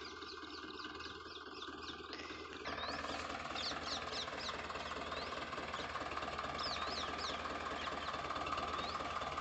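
Powertrac Euro 55 tractor's diesel engine running steadily under load, pulling a fully loaded trolley. It gets louder from about three seconds in as it comes closer, with many short high chirps over it.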